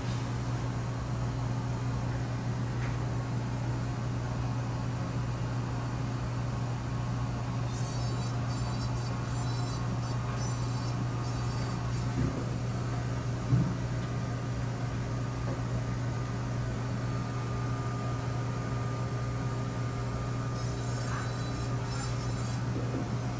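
A steady low mechanical hum, with a single knock about halfway through.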